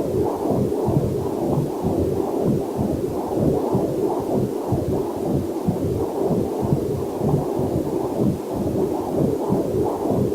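Heartbeat picked up through a fetal Doppler monitor: a rapid, even run of whooshing pulses, with a faint waterfall hiss underneath.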